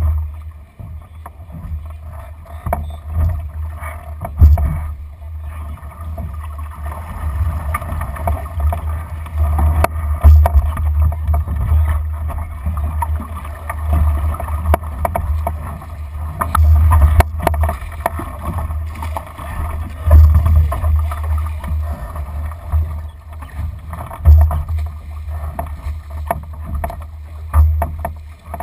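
Wind buffeting the microphone in gusts, over water washing along the hull of a Lightning sailing dinghy under sail, with a few sharp knocks from crew and gear.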